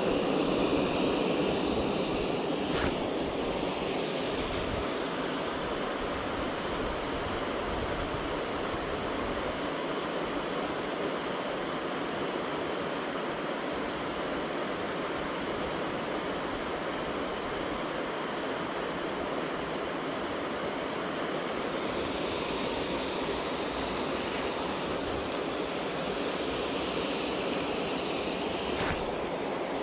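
Steady rush of stream water pouring over a low weir.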